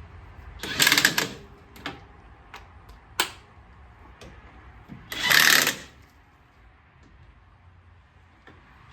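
DeWalt DCF899 20 V cordless half-inch impact wrench hammering in two short bursts, about a second in and again about five seconds in, running lug nuts onto a wheel. A few sharp clicks fall between the bursts.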